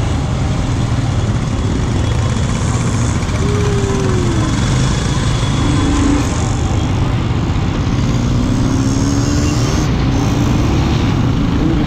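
Royal Enfield Scram 411 motorcycles' single-cylinder engines running steadily as the group rides off.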